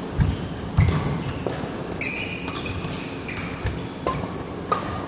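Badminton doubles rally: rackets striking the shuttlecock with sharp clicks, shoes squeaking briefly on the court mat, and heavy footfalls as the players lunge.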